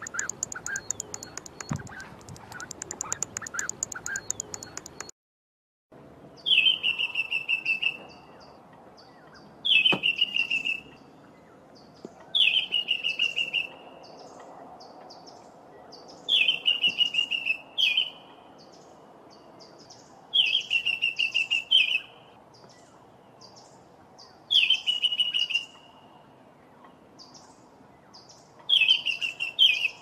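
The tail end of a Spur-winged Goose recording: a rapid high-pitched pulsing with faint repeated notes. After a short break, a White-browed Scrub-robin sings a loud phrase of quickly repeated high notes about every four seconds, seven times, with fainter bird notes in between.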